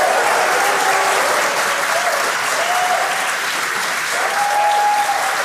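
Crowd clapping and cheering steadily, with a few voices calling out above the clapping.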